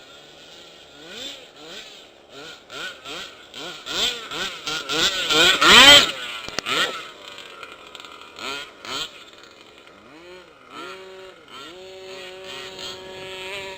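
Small two-stroke engine of a gas-powered RC car being revved in quick blips that rise and fall. It is loudest about six seconds in, then holds a steadier note near the end.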